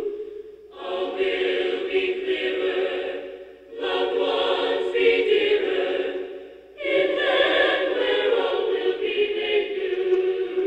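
Unaccompanied choir singing in sustained phrases of about three seconds, with a brief break between phrases.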